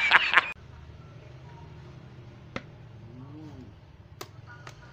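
A man's loud hearty laughter from an inserted film clip, cutting off abruptly about half a second in. After it, a quiet room with a few faint clicks as a wooden box is handled.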